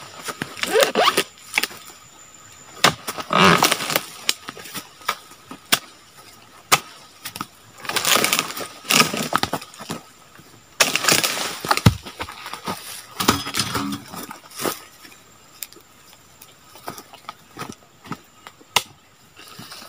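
Pole-mounted oil palm harvesting chisel (dodos) jabbing and cutting through the frond stalks and fruit-bunch stalk of a low oil palm, with rustling of the fronds. Irregular strokes, each about a second long, with a few sharp knocks between them.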